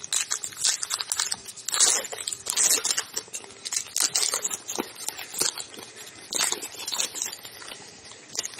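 Trading-card pack wrappers being torn open and crinkled by hand: irregular crackling and tearing.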